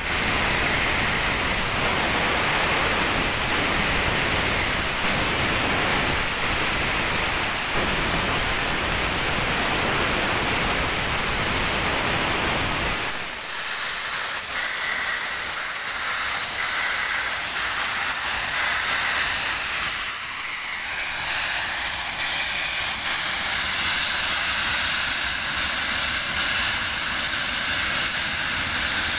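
Steam locomotive venting steam: a loud, steady hiss that loses its low rumble about halfway through, leaving a thinner, higher hiss.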